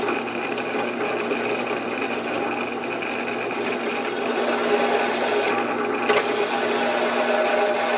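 An end mill turning in a vertical spindle and cutting into a cast metal muller plow: a steady machine whine with a grinding, scraping cut. About six seconds in the sound changes and the steady tones grow stronger as the cutter bites in and throws chips.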